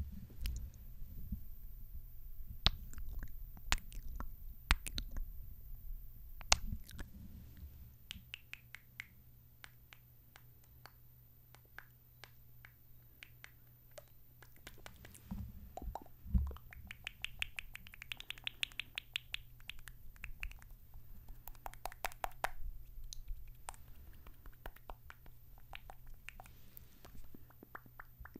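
Close-miked kissing and lip sounds: wet smooches and lip smacks as sharp separate clicks, then fast runs of rapid smacks, some of them squeaky, about halfway through and again near the end.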